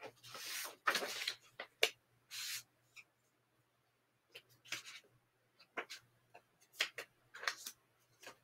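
Quiet rustling and brief scrapes and taps from paper cutouts being handled on a desk. There are a few longer rustles in the first two and a half seconds, a pause, then a run of short light taps and rubs.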